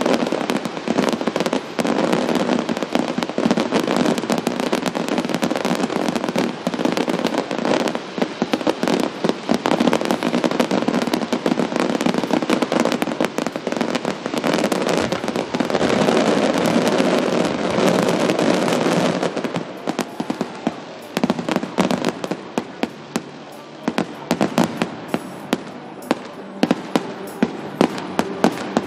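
Fireworks display: a dense, continuous run of crackling and banging shells. About two-thirds of the way in it thins out to separate sharp bangs with quieter gaps between them.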